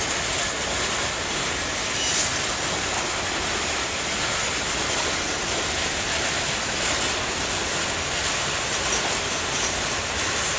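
A Class 66 diesel-hauled freight train of hopper wagons rolling away along the track, heard as a steady noise of wheels on rail.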